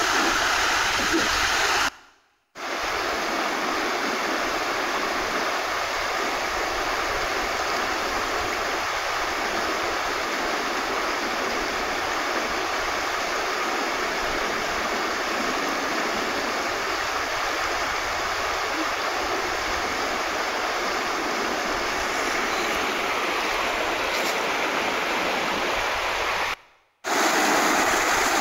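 Rushing water of a muddy, high-running creek tumbling over rocks in small rapids: a steady rush that cuts out briefly twice, about two seconds in and near the end.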